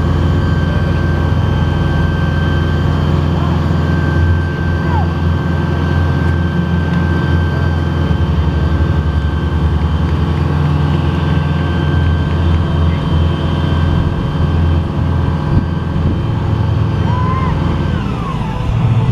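Fire truck's diesel engine running steadily to drive the aerial ladder as it retracts and lowers the platform bucket, with a steady high whine that stops near the end as the ladder comes to rest.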